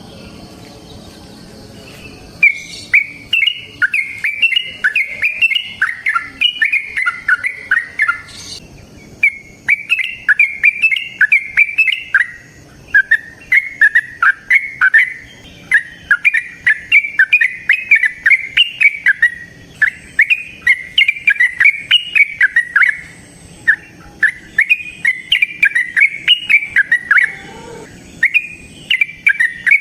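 Yellow-vented bulbul (trucukan) singing long runs of quick, rapidly repeated notes, with a few short pauses between the runs.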